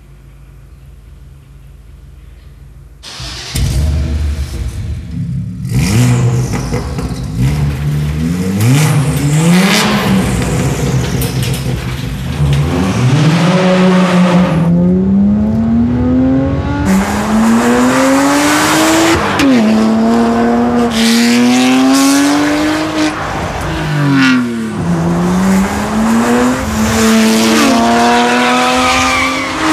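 BMW 1 Series M Coupé's twin-turbo 3.0-litre straight-six through an Akrapovič Evolution exhaust with downpipes. After a low hum, the engine comes in loudly about three seconds in. It then revs hard up through the gears, its pitch climbing steadily and dropping sharply at each upshift, about four times.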